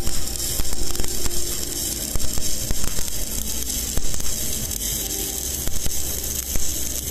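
Stick (shielded metal arc) welding arc on steel plate, crackling and sizzling steadily like frying fish, over a low steady hum. An even frying sound is what a correct amperage setting for the steel sounds like.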